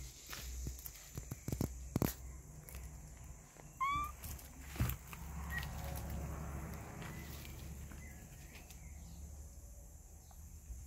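Kittens playing in grass and weeds: one short kitten meow about four seconds in, amid rustling and a few sharp knocks.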